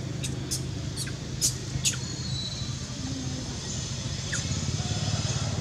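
An engine running steadily with a low hum, with about five short high squeaks in the first two seconds and one more a little after four seconds.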